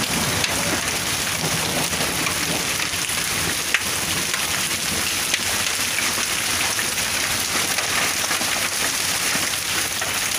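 Heavy rain mixed with hailstones falling on wet ground and puddles: a steady hiss with scattered sharp ticks as hailstones hit.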